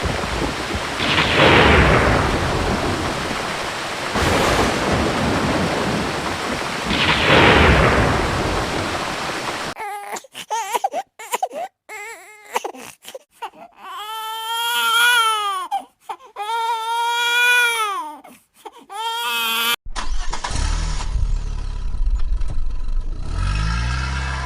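Thunder rumbling, with two big claps about one and seven seconds in. From about ten seconds a baby cries in long, rising-and-falling wails. From about twenty seconds a vehicle engine starts and revs up.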